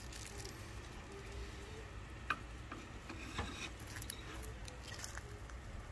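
Dog licking and nibbling cake off a wooden cutting board, quiet, with a few light clicks and knocks spread through.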